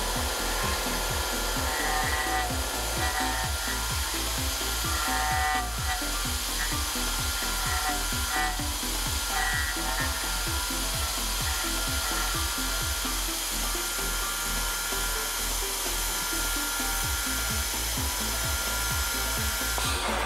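A home-built CNC vertical mill's end mill cutting titanium: a steady, hissing cutting noise with a thin spindle whine, overlaid by electronic background music with a regular beat.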